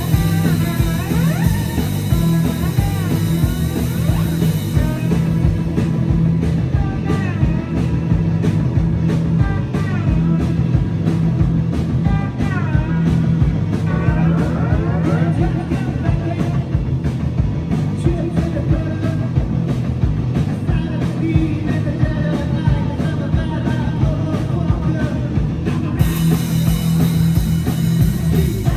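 A rock band playing live, with a steady, driving bass and drum groove under lead lines that slide and bend in pitch. The bright high end thins out about five seconds in and comes back near the end.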